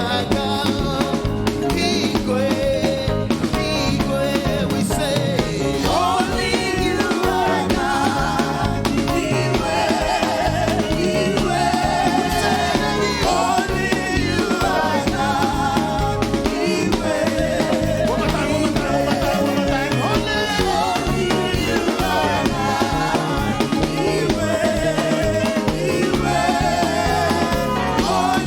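Live praise and worship music: voices singing over a steady band accompaniment with guitar and drums.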